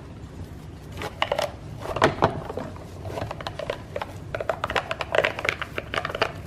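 A sponge scrubbing plastic breast pump parts in a bowl of hot soapy water, starting about a second in: irregular squelching and splashing of the suds.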